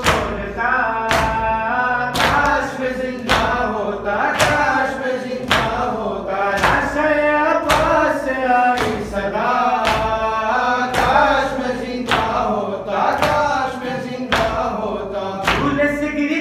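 A man chanting a noha, a mourning lament, through a microphone, with chest-beating (matam) slaps striking in an even rhythm about once a second.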